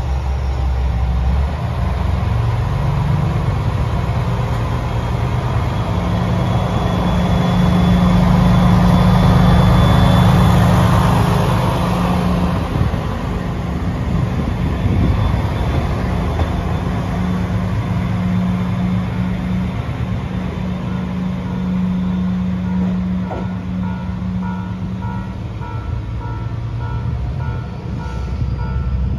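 Diesel engine of a KiHa 120 single-car diesel railcar revving as the train pulls away from the platform. It grows loudest as the car passes close by and then eases as it draws off. Near the end, repeated beeping tones sound as well.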